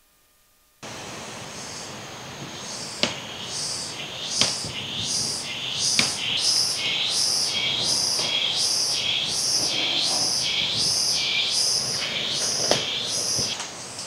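An insect calling in a steady, high, pulsing rhythm of about two pulses a second, starting a couple of seconds in and stopping shortly before the end. A few sharp clicks are heard in between, the loudest about six seconds in.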